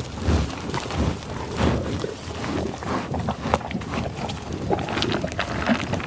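American bison close to the microphone, making a run of low, irregular grunting and sniffing sounds amid rustling tall grass.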